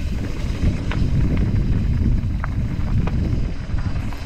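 Wind buffeting the microphone as a mountain bike rolls fast down a dirt and gravel trail, with tyre noise on the loose surface. A few sharp clicks of the bike rattling over bumps come through.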